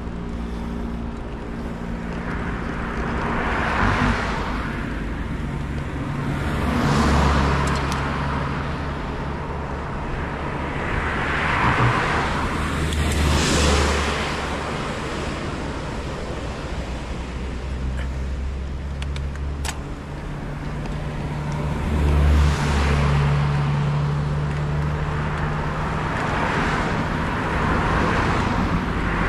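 Wind buffeting the microphone of a camera on a moving bicycle, with motor vehicles passing several times, each a slow swell of engine and tyre noise that rises and fades, one of them a small pickup truck.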